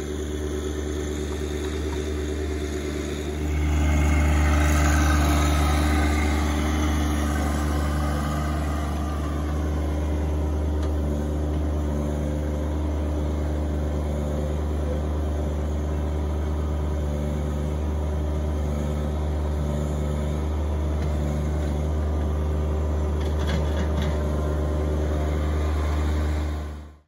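John Deere 1025R compact tractor's three-cylinder diesel engine running steadily as the tractor drives and works the loader, getting louder about three and a half seconds in.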